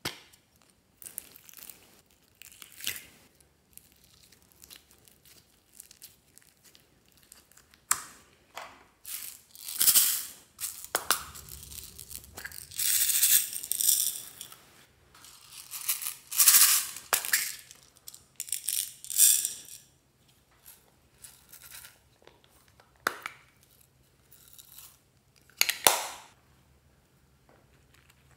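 Hands working glossy slime and foam beads: plastic slime tubs opened and emptied, slime pressed and squished, beads sprinkled on, making irregular sticky squishes, crackles and plastic clicks, loudest in the middle.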